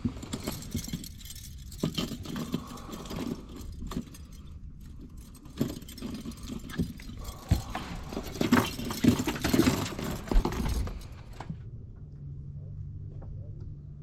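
Irregular clicking, rattling and scraping of fishing tackle and a just-caught crappie being handled in a boat, as the fish is unhooked. The handling noise stops about eleven and a half seconds in, leaving a low steady hum.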